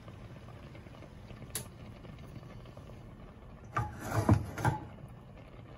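Metal cooking pot handled on a gas stove: a sharp click about one and a half seconds in, then a short loud clatter of knocks and scraping about four seconds in as the pot is lifted off the grate. Throughout there is a steady low hiss.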